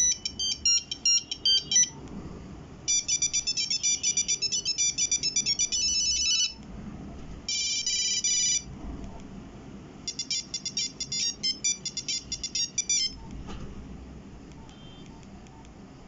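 Nokia 1100 playing monophonic beeping ringtone melodies, four short snippets one after another with pauses of about a second between them; the last stops about 13 seconds in.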